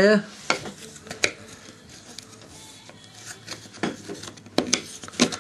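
Cardboard jigsaw puzzle pieces being handled and pressed into place on a table: a few scattered taps and clicks over a light rubbing and scraping.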